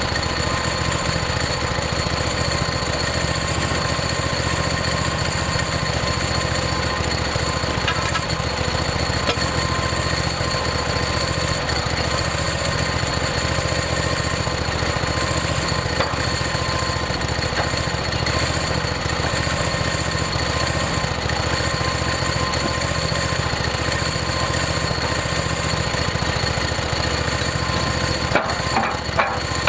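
Portable band sawmill running steadily under power, its engine driving the band blade through a log, with a steady high whine over the engine noise.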